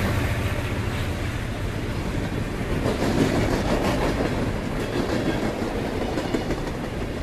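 A steady rumbling, rattling noise with faint clicks, like a train running on its track.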